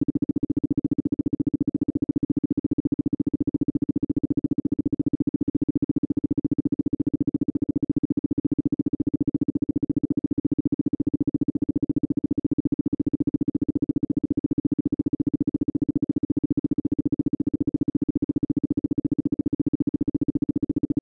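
Isochronic tone for brainwave entrainment: a steady mid-pitched tone pulsing rapidly on and off many times a second. Beneath it is a low, softer synthesized layer that repeats in short sweeps.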